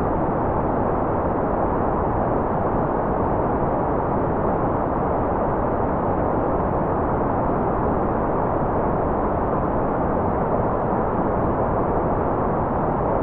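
Steady, unchanging white noise with no breaks or variation, its energy in the low and middle range and little treble, so it sounds soft rather than hissy.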